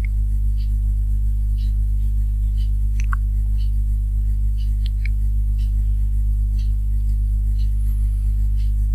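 Steady electrical mains hum picked up by the recording microphone, low and loud, with faint light ticks about once a second.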